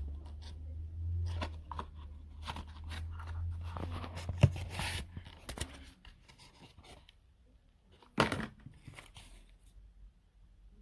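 Handling noise: a run of rustles, scrapes and small clicks, then one sharp knock about eight seconds in.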